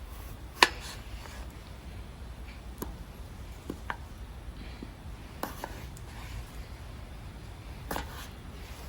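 A series of sharp, irregular clicks and pops, the loudest one about half a second in, over a steady low rumble.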